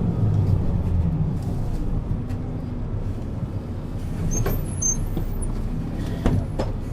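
Mercedes-Benz Citaro C2 bus's diesel engine running, its note easing off during the first second and then holding low and steady. There is a brief high squeal about four and a half seconds in and a short knock near the end.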